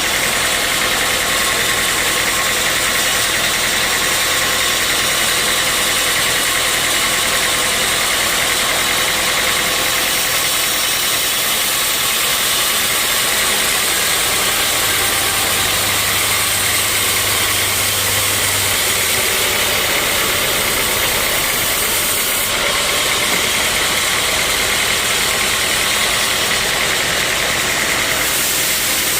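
Sawmill saw and its engine running steadily, a loud continuous machine noise with no break.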